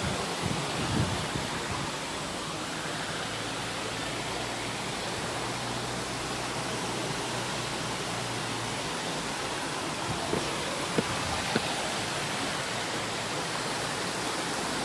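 Steady rush of a rocky mountain stream and its small waterfalls, with a couple of brief clicks about eleven seconds in.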